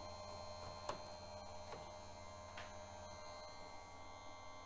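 Clarke ECSS2 electric chainsaw sharpener's motor running with a steady faint hum between grinds. A few faint clicks come as the chain is pulled round to the next tooth and clamped, the first about a second in.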